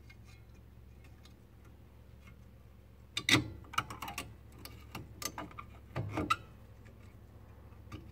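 Metal clicks and clinks from needle-nose pliers working the shoe return spring of a trailer drum brake, as the spring is unhooked. A sharp clank comes about three seconds in, then several more clinks over the next three seconds.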